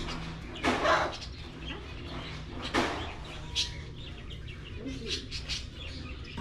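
Caged birds chirping and calling, with two louder, harsher calls about a second in and again near three seconds, over a faint steady low hum.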